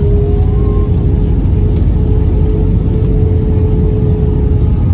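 Loud, steady cabin roar of an Airbus A320 rolling out on the runway after touchdown, with its spoilers deployed: a deep rumble of engines and wheels under a steady hum.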